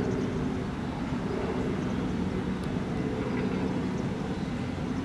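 Outboard motor on a small launch running steadily, a low even hum over a rumble.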